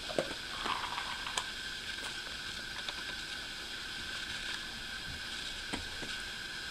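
A few soft, scattered clicks of plastic stacking-toy rings being handled by a golden retriever's mouth: one as a ring goes onto the stack at the start, others later. They sit over a steady background hiss with a faint steady whine.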